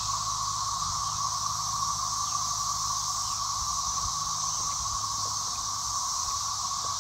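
Chorus of many cicadas: a steady, unbroken drone with a buzzing tone and a high hiss layered above it.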